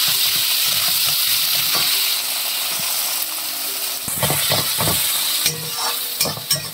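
Chopped onions sizzling in hot oil in an aluminium kadai, stirred with a steel spatula. From about four seconds in, the spatula scrapes and taps against the pan several times.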